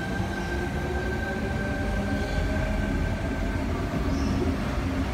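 Sydney Trains Tangara electric multiple unit pulling out and passing close by: a steady rumble of wheels and running gear with a steady high whine that fades out about three and a half seconds in.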